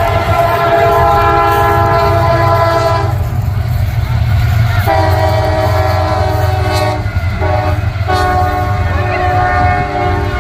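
Locomotive air horn sounding a chord of several notes in separate blasts, long, long, short, long: the pattern a train sounds for a road crossing. A steady low rumble from the passing train runs under it.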